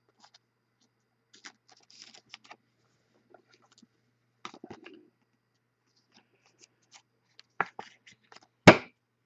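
Trading cards and plastic being handled: light, scattered clicks and crinkles as a card is slipped into a plastic sleeve and a foil card pack is picked up, with a sharper, louder click near the end.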